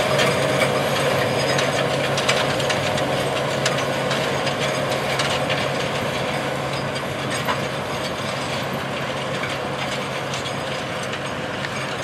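Case IH Steiger 620 Quadtrac's diesel engine pulling hard under load as it drags a 9-shank ripper through very hard, dry ground, running steadily. Many quick clanks and rattles come from the tracks and ripper. The sound fades slowly as the tractor moves along.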